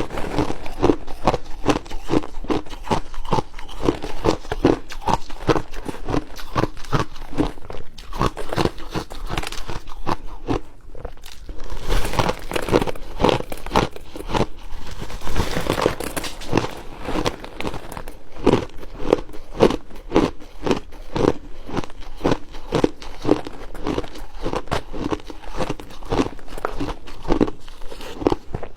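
Close-up crunching and chewing of hard refrozen shaved ice: rapid, repeated sharp crunches, several a second, as the ice is bitten and chewed.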